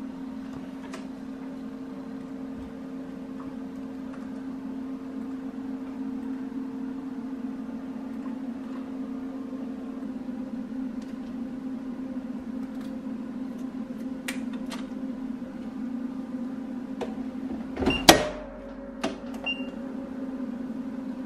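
A steady electrical hum with a few light clicks. About 18 seconds in there is a loud clatter, followed by a short high beep.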